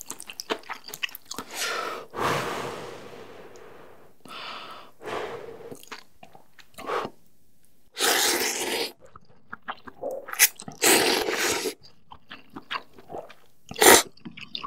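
A mouthful of noodles in broth being slurped three times in long, wet pulls, with chewing and lip smacks between, close-miked.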